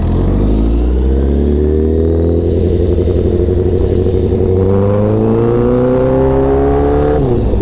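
Honda CBR1000RR's inline-four engine pulling steadily, its pitch climbing slowly as the bike speeds up, then falling near the end as the revs drop.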